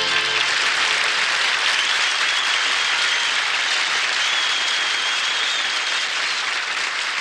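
Studio audience applauding steadily as the band's last notes die away in the first half-second, with a thin high tone heard through the middle.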